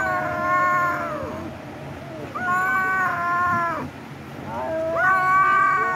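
A cat meowing: three long, drawn-out meows, each rising at first and then held level for over a second.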